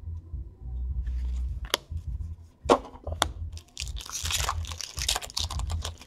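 A hockey card pack's wrapper being torn open. A few sharp clicks come first, then a burst of crinkling and tearing about four seconds in, with scattered crackles after it.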